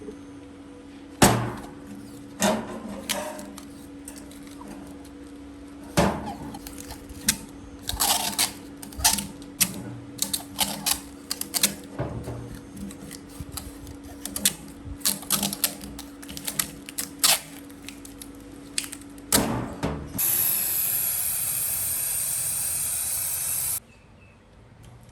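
Workshop tool work on a knife: a long run of sharp, irregular clicks and knocks over a steady hum. Near the end comes a loud, steady hiss lasting about three and a half seconds, which cuts off suddenly.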